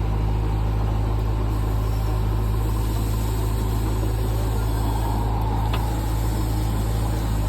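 JCB 3DX backhoe loader's diesel engine running steadily with a deep, even hum, and a brief sharp click near the end.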